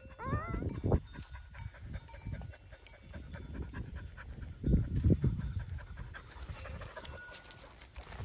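Carea sheepdog panting, with a newborn puppy's short rising whine at the very start. A sharp click about a second in and a few louder low thumps shortly before the midpoint break through the panting.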